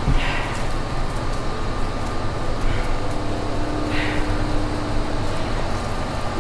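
Sound-art performance soundscape: a steady low rumbling drone, with a faint held tone from about three to five seconds in and soft hissy swells now and then above it.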